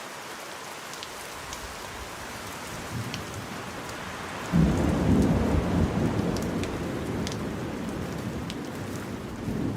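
Steady rain falling with scattered drops, then a sudden clap of thunder about halfway through that rumbles on and slowly fades.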